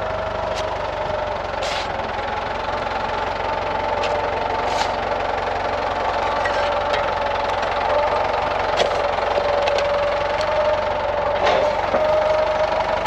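Tractor engine running steadily with a steady whine over it, and a few short clanks.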